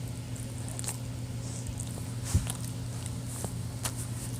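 Small plastic food colouring bottle handled and squeezed to get out half a drop: a few small clicks and one soft knock about two and a half seconds in, over a steady low hum.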